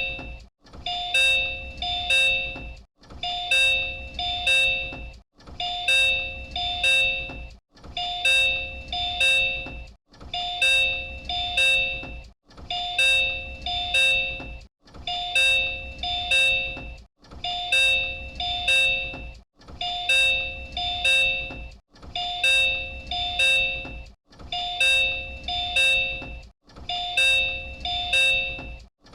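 Door chime of the Disney Resort Line 10-series monorail, the same electronic chime used on JR Central trains, played over and over in a loop about every two and a half seconds with a short gap between repeats. A faint low hum lies under each repeat.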